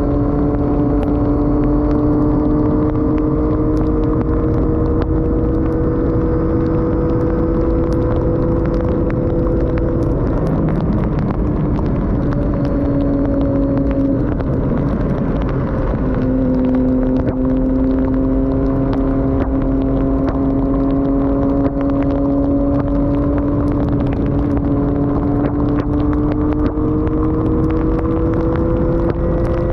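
Triumph Daytona 675's inline-three engine with an Arrow exhaust pulling along, its revs climbing slowly, dropping off about ten seconds in, then climbing slowly again after a short break, over a steady rush of wind. The sound is muffled, the camera's wind muff soaked by rain.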